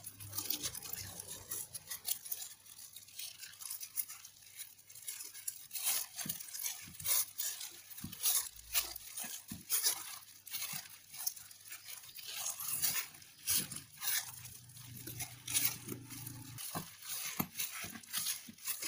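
Hands in disposable plastic gloves rolling and pressing a bamboo rolling mat around a kimbap roll: irregular crinkling of the plastic gloves with light clicks and rustles of the bamboo slats.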